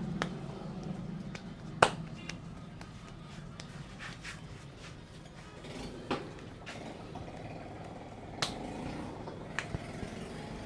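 Barber's hands-on head and neck massage: a handful of scattered sharp snaps and slaps, the loudest about two seconds in.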